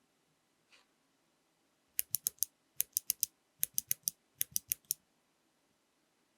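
Clicky mechanical keyboard switches without keycaps being pressed, giving sharp, bright clicks in four quick groups of about four between roughly two and five seconds in.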